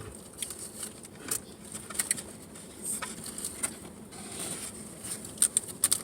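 Eating sounds close to the microphone: irregular small clicks and crackles of chewing and handling food, with a cluster of sharper clicks near the end.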